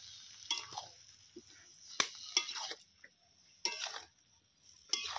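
A metal spatula stirring spinach and potatoes in a metal kadai, clinking and scraping against the pan several times over a steady sizzle from the cooking greens.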